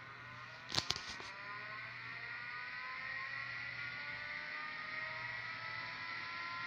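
SM 5509 hard disk drive spinning up: a whine of several tones climbing together for about three seconds and then holding steady, which the owner suspects means the platters spin faster than they should. A quick cluster of sharp clicks comes about a second in.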